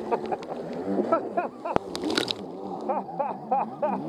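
Jet ski engine running with a wavering, changing pitch while water sloshes and gurgles around the hull, with a splash of spray about two seconds in.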